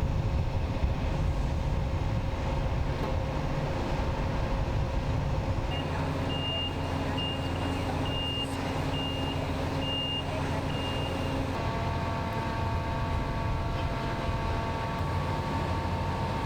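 Heavy vehicle engine running steadily, with a reversing alarm beeping at an even pace for about six seconds in the middle before it stops.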